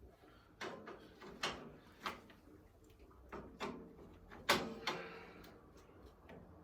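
A string of irregular knocks and clunks, the loudest about four and a half seconds in: hand tools and parts being handled during a mechanical teardown.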